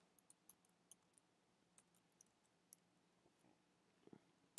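Faint, irregular clicks of computer keyboard keys as a short word is typed, most of them in the first three seconds.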